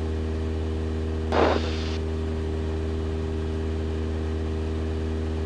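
Cessna 172 Skyhawk's piston engine and propeller droning steadily in cruise, heard from inside the cabin. A brief rustling noise sounds about a second and a half in.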